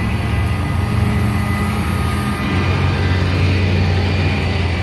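A vehicle engine idling with a steady low hum, its pitch shifting slightly about halfway through.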